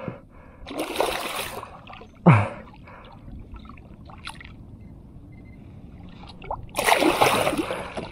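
A hooked fish thrashing at the surface beside a kayak, splashing water in two bursts, about a second in and again near the end. A short, loud, low grunt falls in pitch between them, about two seconds in.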